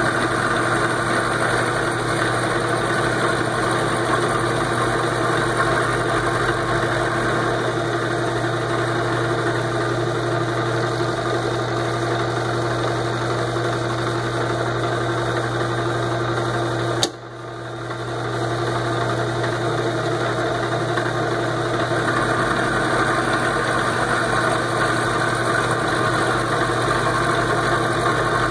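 Vertical milling machine running steadily while an end mill cuts a flat on a small metal part held in an indexing fixture. Partway through there is one sharp click, and the machine noise briefly drops before building back.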